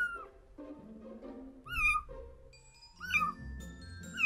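A young kitten mewing in short, high cries that fall in pitch, four times about a second and a half apart.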